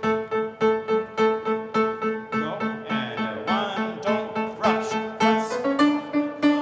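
Grand piano playing steady repeated chords, about three a second, each struck and fading, shifting to a new chord a little before the end.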